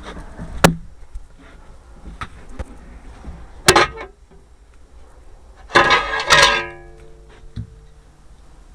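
A few sharp clicks and knocks, then a quick clatter about six seconds in that leaves a short ringing tone fading away.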